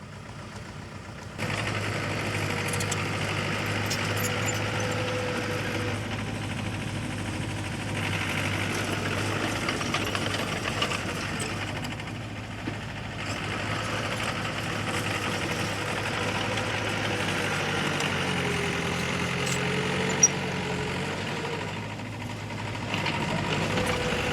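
Heavy earth-moving machine's diesel engine running, coming in abruptly a second or so in, then rising and falling in level every few seconds as it works. Its pitch sags for a few seconds late on and then recovers, with one sharp click partway through.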